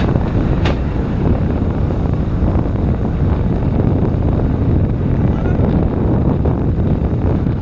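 Steady wind rumble on the microphone over road and traffic noise, heard from a vehicle moving through traffic.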